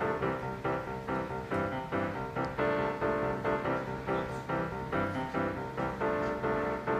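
Background music: an even run of pitched notes, about three a second.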